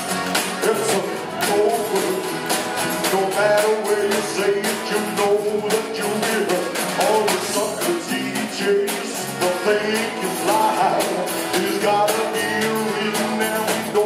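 Live band playing a rock-and-roll style cover: a man singing into a microphone over drums and accordion.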